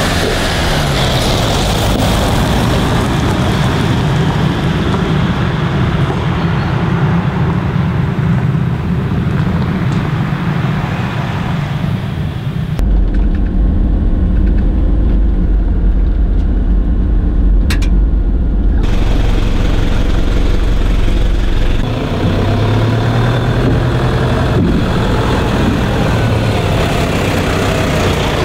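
Toyota Hilux driving on a gravel road, with steady engine and tyre-on-gravel noise. The sound changes abruptly several times, and the middle stretch is a muffled, bass-heavy rumble heard from inside the cab.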